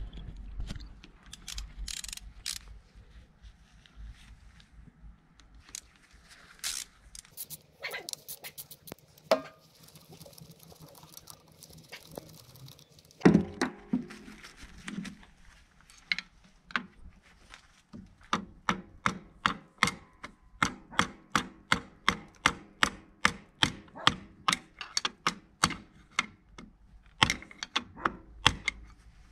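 Metal tools and engine parts clicking and knocking during a motorcycle engine teardown, with one sharp knock about halfway. Then comes a long even run of sharp clicks, about two a second.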